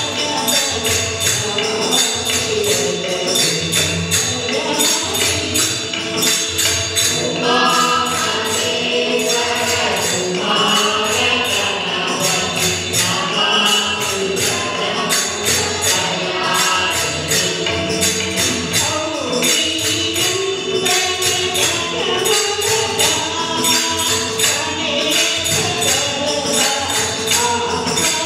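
Hindu devotional bhajan: a mixed group of men and women singing together, accompanied by small hand cymbals (talam) striking a steady beat and hand drums. The voices climb higher through the middle stretch.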